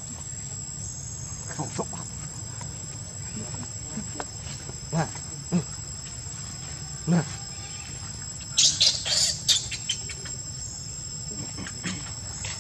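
Insects droning at a steady high pitch, with a few soft short knocks and, about nine seconds in, a quick run of high chirps that is the loudest sound.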